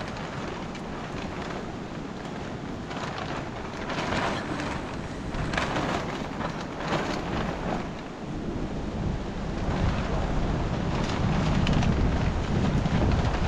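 A large plastic sheet crackling and rustling as it is lifted and dragged, against a low wind rumble on the microphone that grows louder from about eight seconds in.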